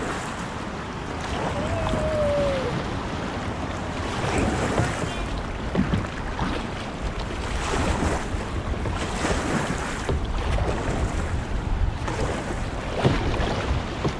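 Kayak paddles dipping and splashing in lake water, a stroke roughly every second, with water lapping at the hull and wind rumbling on the microphone.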